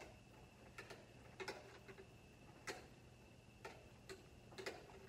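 Golf balls rolling inside a tilted aluminum cake pan, knocking against its sides in a series of faint, irregular clicks, about eight in all.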